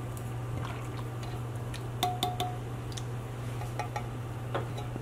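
A tin can of evaporated milk being emptied into a saucepan of milk: light metallic clinks and taps of the can against the pot, with a short ringing clink about two seconds in and a few softer ticks later. A steady low hum runs underneath.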